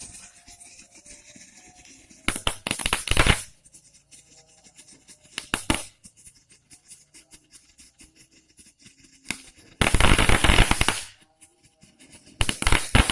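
Small 'Happy Flower' fireworks going off in bursts of rapid crackling pops: one burst about two seconds in, a short one near six seconds, then two longer, louder bursts from about ten seconds on.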